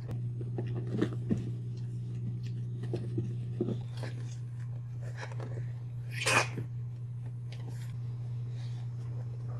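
Boxer mother and puppies playing, with scattered short dog noises and scuffles and one louder, sharp noise about six seconds in, over a steady low hum.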